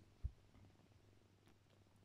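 Near silence with a faint steady low hum, broken about a quarter of a second in by one brief low thump.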